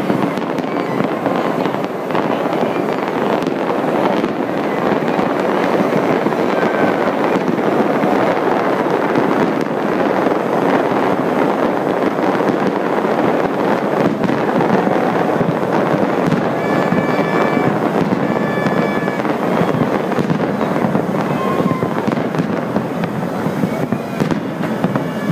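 A fireworks display in full barrage: a dense, continuous run of bursts and crackling with no letup.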